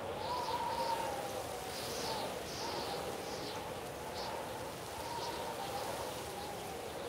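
Outdoor field ambience: scattered short bird chirps over a steady hiss, with a faint wavering tone underneath.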